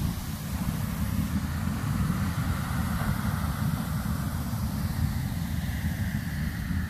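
Soda Springs' captive geyser jetting water steadily from its capped vent, making a continuous rushing noise, with a heavy low rumble of wind buffeting the microphone.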